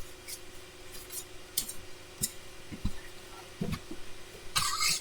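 Scattered light clicks and soft rustles of hands working through hair, with a louder rustle near the end.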